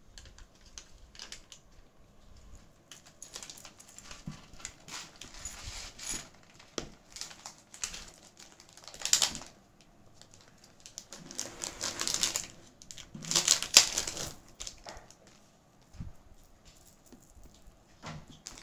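Handling noise as bead necklaces are picked up and laid out: scattered light clicks and taps of beads and metal, with louder crinkly rustling bursts around the middle and again about two thirds of the way through.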